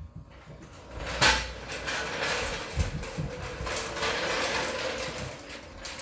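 A steel floor jack being moved across a concrete floor, starting with a sharp clank about a second in and then rattling and clattering steadily with scattered knocks.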